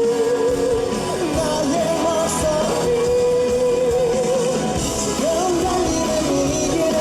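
Live rock band music at a concert: a long held melody note with vibrato over full band accompaniment, with the melody sliding between notes about a second in and again near five seconds.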